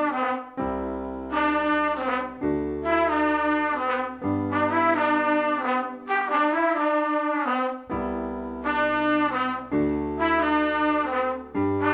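Instrumental background music: slow, held chords that change every one to two seconds.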